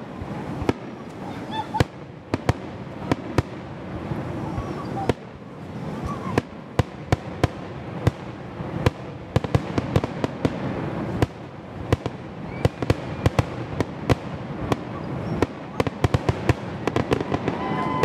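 Aerial fireworks shells bursting overhead, sharp bangs one after another that come faster and thicker from about six seconds in, packed closely near the end.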